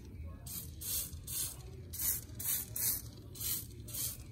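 Tire shine spray product being spritzed in quick short sprays, about ten brief hisses at two or three a second.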